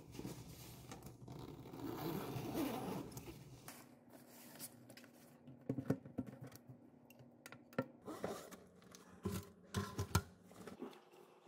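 Rustling and zipping of a canvas bag as it is opened and rummaged, then a few light knocks and taps as a laptop, spiral notebooks and a small pencil case are set down on a wooden desk.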